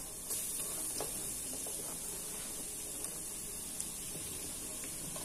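Chopped onion and garlic frying in butter in an aluminium pot: a steady sizzle, with a light tap about a second in.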